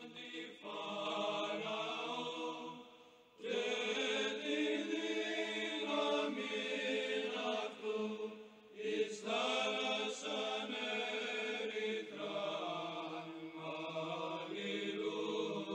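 Orthodox church chant: voices singing long, drawn-out phrases over a steady held low note, in several phrases with brief breaths between them.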